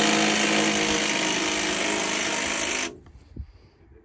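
A power tool runs loud and steady with a constant hum, then cuts off sharply about three seconds in.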